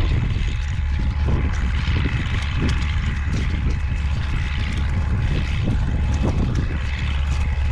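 Strong wind buffeting the microphone: a steady, loud low rumble, with scattered light knocks underneath.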